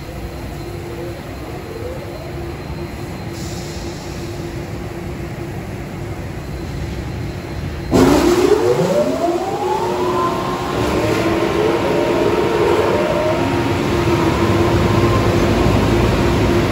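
Car wash dryer blowers switching on with a sudden rush of air about eight seconds in, several motor whines rising in pitch over about two seconds as the fans spin up, then running steadily at full speed. Before that, a steadier, quieter machine hum.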